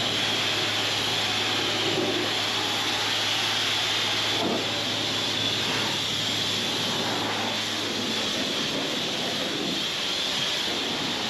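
Steady, loud hiss with a low hum underneath that fades out about eight seconds in.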